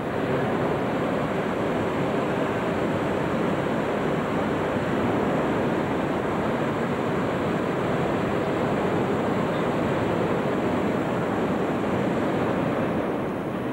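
A steady, loud din from hot-air balloon inflation equipment and a large crowd in a vast hangar, with no single sound standing out. It eases slightly near the end.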